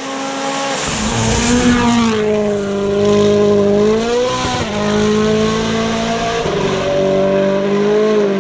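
Rally car engine running hard at high revs close by, getting louder about a second in and staying loud, its pitch climbing and dropping with throttle and gear changes, with a sharp drop about four and a half seconds in.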